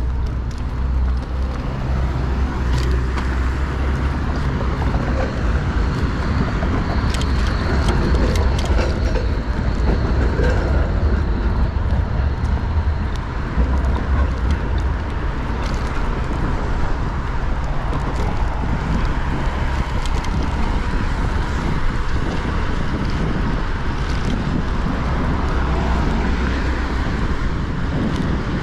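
City street noise heard from a moving bicycle: a steady low rumble of riding noise with road traffic around, scattered light clicks, and a faint high whine for a few seconds about a quarter of the way in.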